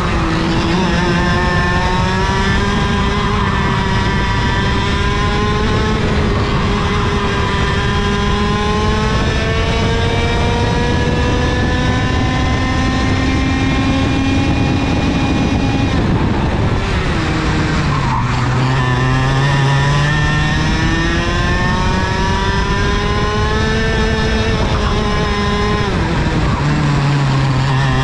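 IAME KA100 100cc two-stroke kart engine heard up close onboard at full throttle, its pitch climbing steadily along the straights. The pitch drops sharply as the kart slows for a corner about sixteen seconds in and again near the end, then climbs again under acceleration.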